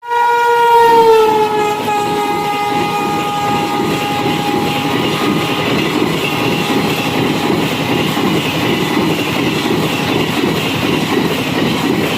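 Shrill air horn of a high-speed Rajdhani Express locomotive sounding as the train passes, its pitch dropping about a second in and fading out over the next few seconds. Under it, the steady rush and clatter of the coaches going by at speed.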